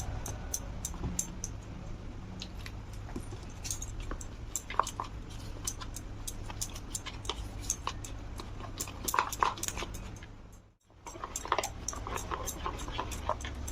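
A spoon clinking and scraping against a bowl while the batter of cornflour, egg, salt and black pepper is stirred: many quick light clicks over a steady low hum, cut off briefly about two-thirds of the way through.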